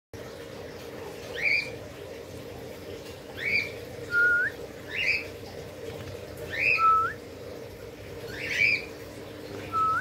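Caged parrots calling: five loud rising, whistled squawks about every one and a half to two seconds, with three shorter upturned whistles between them, over a steady low hum.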